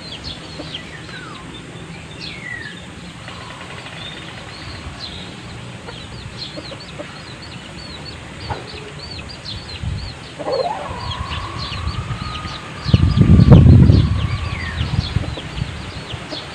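Backyard chickens calling: many short high peeps and chirps throughout, and one long drawn-out call that rises and then holds, from about ten seconds in. Around thirteen seconds a loud low rumble comes in briefly.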